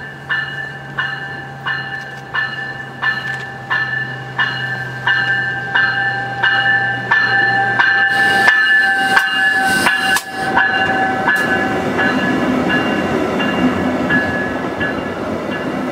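VIA Rail Siemens Venture passenger train pulling into the station with its bell ringing at an even pace and a low engine hum as the front end nears. About eight seconds in the front end passes and the hum stops, giving way to a louder rumble of the cars rolling by while the bell fades.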